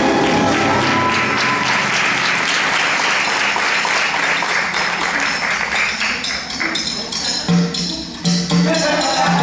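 An audience applauding over backing music. The applause dies away after about six seconds, and the music's low, pulsing notes carry on.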